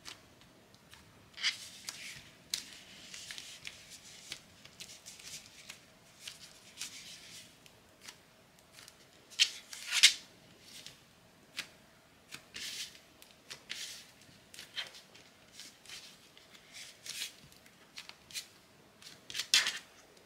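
Soft butter slime being kneaded and folded by hand with brown slime worked into it, giving irregular sticky clicks and crackles, with a few louder crackles, the loudest about ten seconds in.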